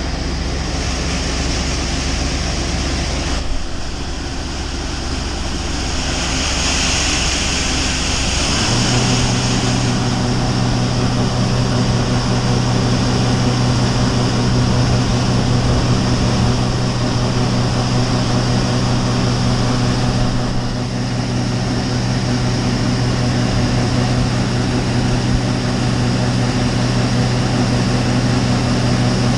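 John Deere 9570 STS combine's diesel engine running under load while its unloading auger pours shelled corn into a grain truck, a steady drone with a hiss over it. About a third of the way in the sound settles into a stronger, steady hum as the unloading drive takes up the load.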